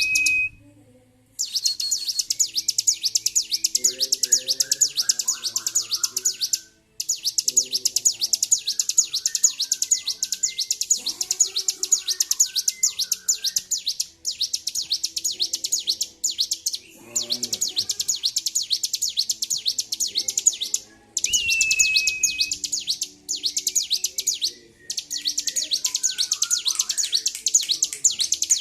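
Bar-winged prinia (ciblek) in full, nonstop song: a rapid, high-pitched run of notes broken only by a few short pauses, the sign of a bird worked up and singing without let-up. A single clear, steady whistled note sounds once, a little over 20 seconds in.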